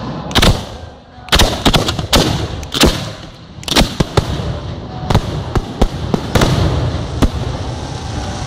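Aerial firework shells bursting overhead: about a dozen sharp bangs at irregular intervals, several in quick clusters.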